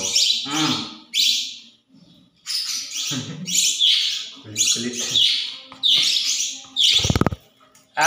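Pet parakeets, a budgerigar and an Indian ringneck, chirping and squawking in short sharp calls every half second to a second, with a brief lull about two seconds in. A short loud knock comes near the end.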